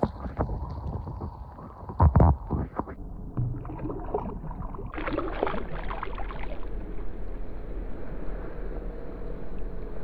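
Creek water sloshing and gurgling, with a couple of loud thumps about two seconds in.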